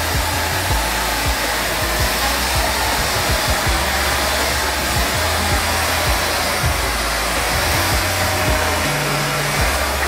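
Shark Navigator upright vacuum cleaner running on carpet: a steady motor hum and rush of air.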